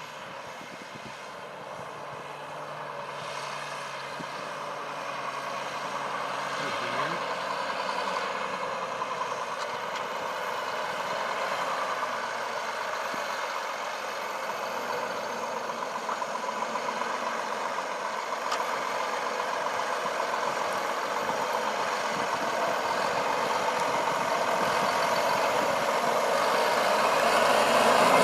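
John Deere 8335R tractor's six-cylinder diesel engine running steadily under load as it pulls a nine-furrow plough, growing gradually louder throughout.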